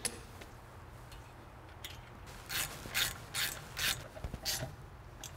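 Hand ratchet clicking through about five quick strokes in the second half, running down the nuts that temporarily hold the brake caliper on its mounting studs.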